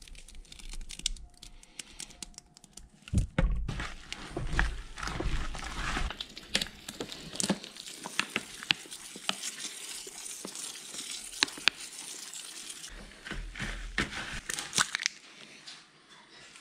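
Gloved hands kneading and squishing a wet mash of blended chicken liver, oats and grits in a bucket. It makes an irregular run of small wet clicks and squishes, with a few dull thumps a few seconds in.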